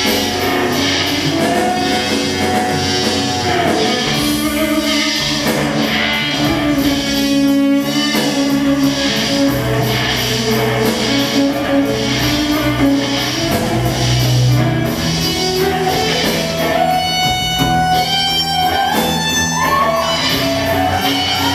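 Live rock band playing an instrumental passage: electric guitar over bass and drums with a steady beat. Near the end the guitar holds long notes that bend in pitch.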